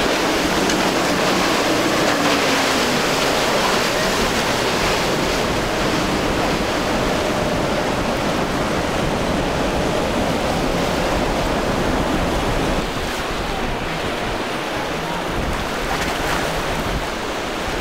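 Choppy sea and surf with wind buffeting the microphone, and boat outboard motors running faintly underneath. The sound gets slightly quieter about thirteen seconds in.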